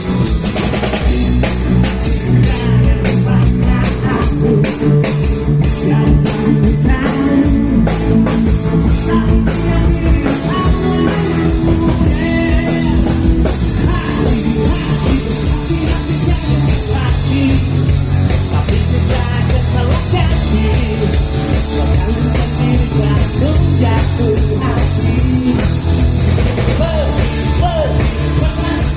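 Rock band playing live: a drum kit beating steadily over bass and other instruments, with no break.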